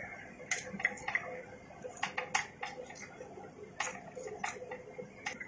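Fresh green vegetables being snapped by hand over a steel plate: about a dozen sharp, crisp snaps at an uneven pace, bunched most closely about two seconds in.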